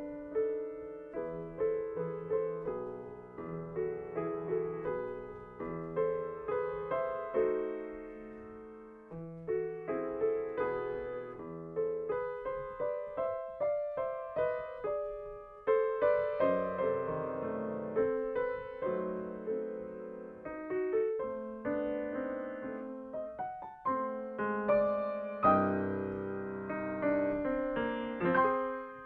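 Solo grand piano playing a classical piece, its notes struck and left to ring and die away. The playing thins and softens about eight seconds in, then picks up again and grows louder about halfway through.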